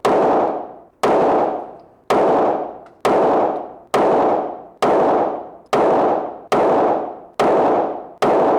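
Handgun fired in a slow string, about ten shots roughly one a second, the gaps shortening slightly toward the end; each sharp report is followed by a long echo tail that dies away before the next.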